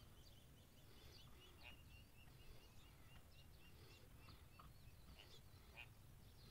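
Near silence, with faint birds chirping in the background: a quick, even run of short chirps in the first half, then a few scattered single chirps.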